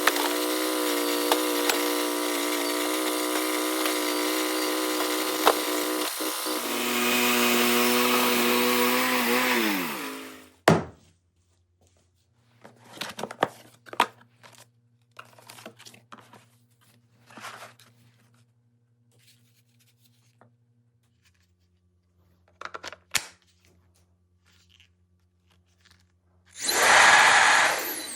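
Sawmill engine running steadily, dropping in pitch about six seconds in and winding down to a stop about ten seconds in. Then come scattered light knocks over a faint hum. Near the end a loud, even rush of air starts, typical of a blower being switched on.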